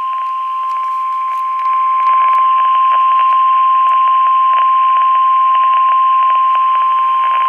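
A weather radio's speaker playing one steady alert tone at about 1 kHz over light static crackle, louder from about two seconds in: the NOAA Weather Radio 1050 Hz warning alarm tone that leads into a replayed flood watch message.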